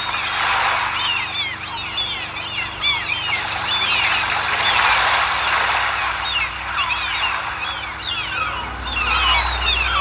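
Many short bird chirps overlapping, thickest in the second half, over a steady rushing noise.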